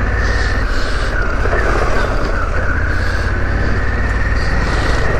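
Harley-Davidson Pan America 1250's V-twin engine running steadily as the motorcycle is ridden along an off-road track, with a steady high-pitched whine over the engine note.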